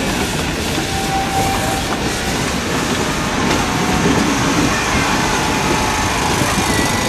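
Narrow-gauge steam locomotive 83-180, a 1946 Đuro Đaković build, passing slowly with its train: a steady, loud mix of running-gear clatter, wheels on the rails and escaping steam.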